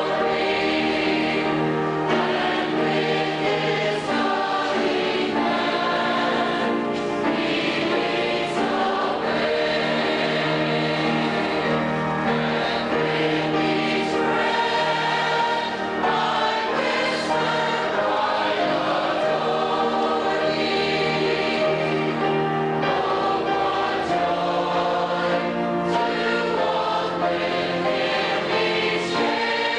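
Mixed church choir of men and women singing a hymn, accompanied by organ, in continuous sustained chords.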